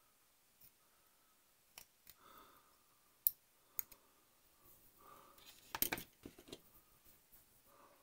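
Scattered small clicks and taps of hobby tools and plastic model-kit parts being handled on a workbench, with a quick run of sharper clicks about six seconds in.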